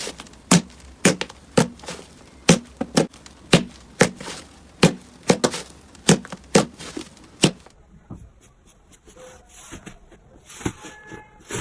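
A run of sharp chopping strokes, about two a second, like a knife coming down onto a cutting board. Near the end they stop abruptly and are replaced by quieter crackling.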